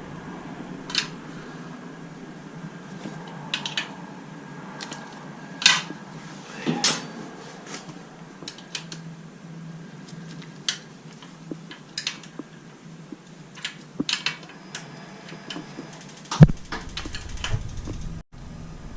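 Scattered metallic clicks and clinks of hand tools on a motorcycle during chain and sprocket work, over a faint steady hum. One louder knock comes about sixteen seconds in.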